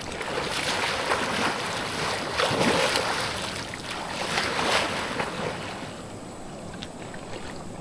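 Water splashing and sloshing from someone swimming across a pool, in irregular surges for about the first five seconds, then settling to a quieter lapping.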